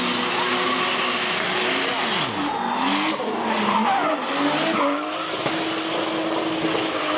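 Race car engine revving, its pitch swooping up and down midway and then holding steady near the end, with tyres squealing and skidding.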